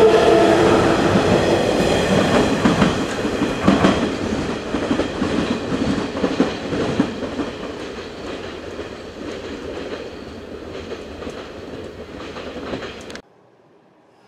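Electric commuter train pulling away from the platform: a motor whine at first, then the wheels clacking over the rail joints as it leaves, fading steadily. The sound cuts off abruptly about 13 seconds in.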